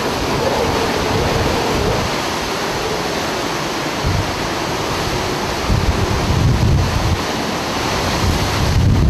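Hurricane-force wind and driving rain: a loud, steady rush, with heavy gusts buffeting the microphone about four seconds in, again around six to seven seconds, and near the end.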